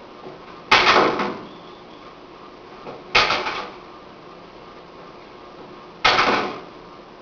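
Three sharp impacts from a martial arts drill, hands and strikes landing, about two and a half to three seconds apart, each dying away within about half a second.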